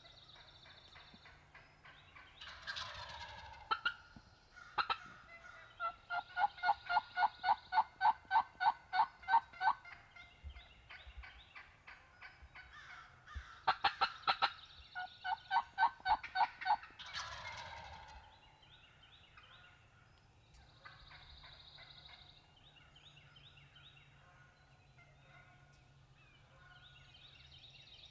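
Wild turkeys calling and gobbling. Two sweeping calls frame two long runs of rapid, evenly repeated notes, about three a second, each run lasting a few seconds.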